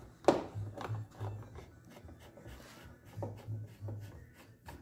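Hand Phillips screwdriver turning a screw into a plastic door panel: scattered sharp clicks and faint rubbing as the screw is driven in.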